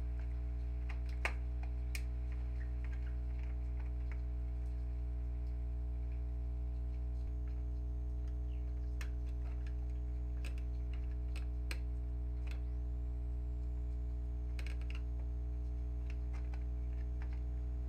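Scattered small clicks and taps of hands and tools on the printer's plastic and metal parts while the power supply board is being removed, over a steady low hum.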